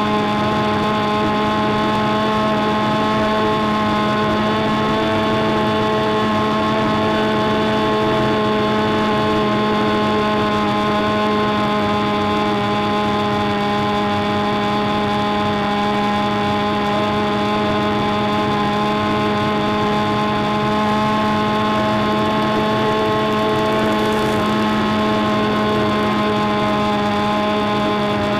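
Big Stick 60 RC airplane's engine and propeller running at a steady throttle, a constant drone that holds the same pitch and level throughout, heard close up from the onboard microphone.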